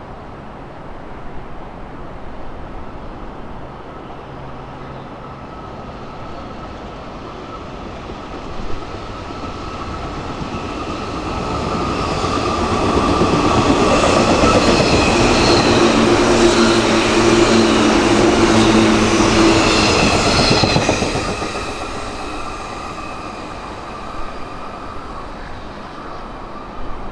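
Special overnight sleeper electric train passing through a station without stopping. Its rumble and wheel clatter build up, stay loud for about eight seconds as the cars go by, then fade away.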